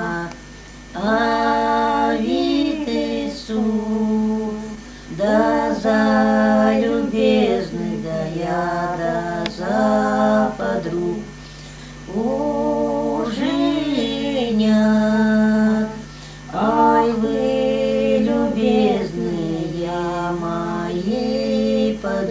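Village women singing a Russian wedding song unaccompanied: the song sung at the bride's lament while the bride weeps. It goes in long drawn-out phrases broken by short pauses for breath.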